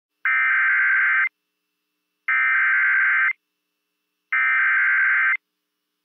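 Emergency Alert System SAME digital header sent over NOAA Weather Radio: three bursts of data tones, each about a second long and about two seconds apart, encoding the severe thunderstorm warning that follows.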